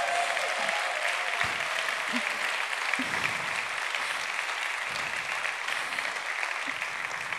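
Audience applauding steadily, thinning a little towards the end.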